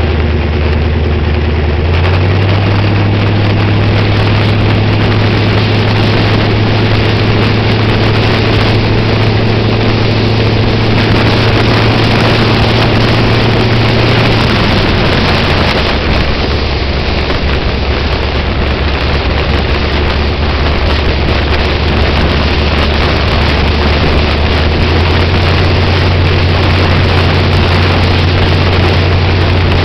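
A sprint car's V8 engine with eight open velocity stacks runs at a steady cruise. Its low drone steps up in pitch about two seconds in, drops back about halfway through and rises again near the end. Wind noise on the microphone runs over it.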